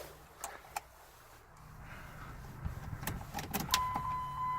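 Sharp metallic clicks of a key being put into a 2008 Jeep Liberty's ignition and turned, a few early on and a quick cluster after about three seconds. A steady high electronic tone starts just after the cluster and holds.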